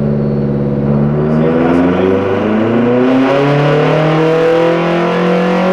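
Turbocharged Subaru EJ257 flat-four on a chassis dyno under full load, its revs climbing steadily from about a second and a half in as it pulls through the rev range.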